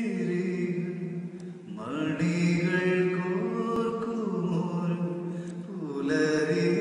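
Slow, wordless opening of a Malayalam song: long held notes that slide up and down in pitch, chant-like, with a softer dip near the two-second mark.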